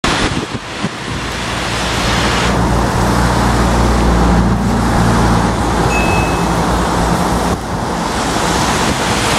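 Steady rush of floodwater in a concrete channel mixed with road traffic. A heavy vehicle's low engine hum builds from about two seconds in and fades out around seven seconds.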